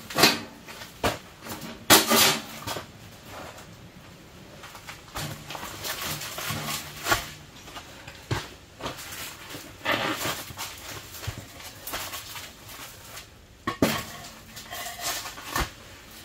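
Stone pavers being set down and shifted on a canvas tent floor, with a small stainless steel wood stove moved onto them: a string of sharp knocks, the loudest in the first couple of seconds, with scraping and rustling of canvas between.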